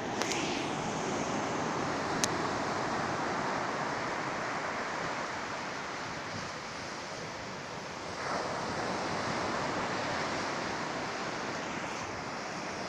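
Sea surf washing on the shore, a steady rush that swells about a second in and again about eight seconds in. Two sharp clicks are heard in the first few seconds.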